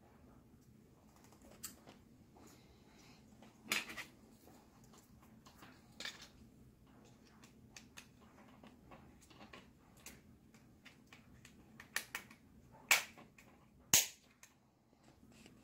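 Scattered sharp clicks and snaps from hands working telephone wire and a small plastic phone jack. The loudest snaps come near the end.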